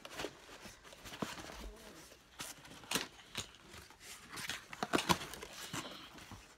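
A cardboard box being opened and handled by hand: irregular clicks, taps and crackles of cardboard and packaging.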